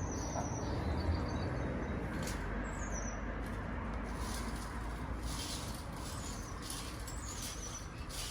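Outdoor ambience: a bird giving short, high, falling chirps every second or two over a low rumble and soft rustling.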